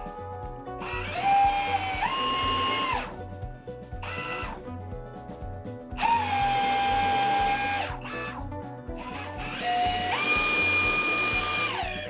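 18V cordless drill drilling into a wooden strip in three runs of about two seconds each and one short burst, its motor whine stepping up in pitch partway through the first and last runs as the trigger is squeezed harder. Background music with a steady beat plays underneath.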